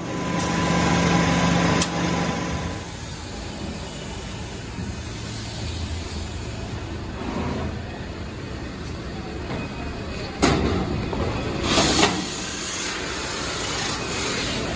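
Steady running noise of PVC pipe factory machinery, with a hum in the first couple of seconds, a sharp knock about ten and a half seconds in and a short clatter near twelve seconds.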